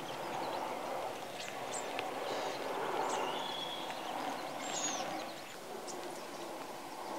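Outdoor ambience: a steady rushing background with scattered short bird calls, a few quick high chirps and a brief whistle about three seconds in.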